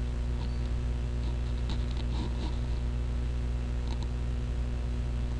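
Steady low electrical hum with light hiss from the recording setup, with a few faint ticks.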